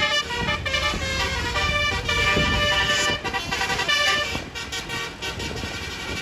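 Tour bus's Basuri 'telolet' multi-tone horn playing a quick tune of changing notes, with a low rumble underneath.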